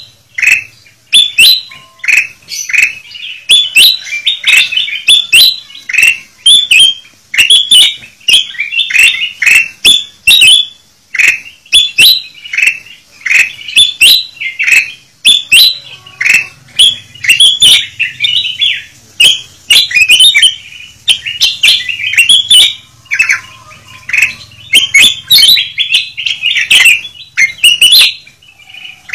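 Kutilang emas (black-headed yellow bulbuls) calling noisily, a dense chatter of short, loud chirps several times a second with no pauses, as on a lure recording for catching wild birds.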